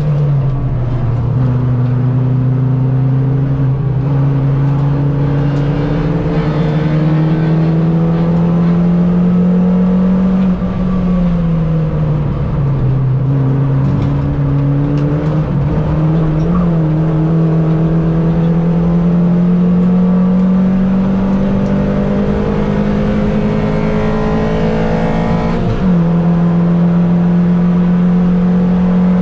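Mini Cup race car engine at full racing load, its pitch climbing slowly and drawn out through the gears. The pitch drops and climbs again about eleven seconds in, and jumps up sharply near the end on a downshift.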